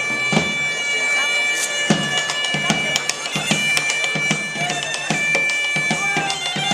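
Bagpipes playing a tune over a steady drone, with a drum beating along.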